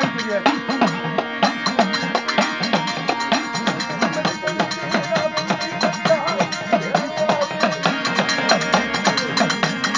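Loud traditional devotional music: drums and clattering percussion keep a rapid, steady beat over sustained tones.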